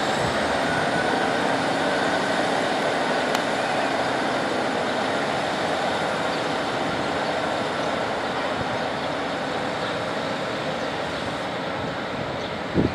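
Class 150 Sprinter diesel multiple unit running away along the line, its diesel engine note and rolling noise steady and slowly fading as the train recedes. A brief low thump near the end.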